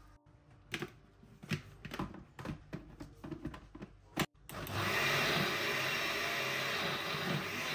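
Krypton countertop blender: a run of clicks and knocks as the jar is fitted onto the base, then about four and a half seconds in the motor starts and runs steadily, blending greens, grated coconut and garlic with water.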